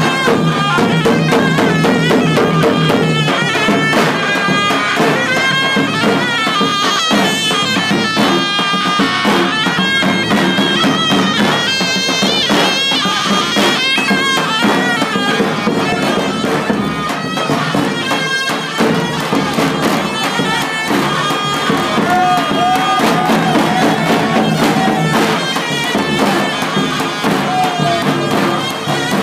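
Loud Turkish folk dance music for a halay: a shrill, reedy wind melody over a steady, quick drum beat.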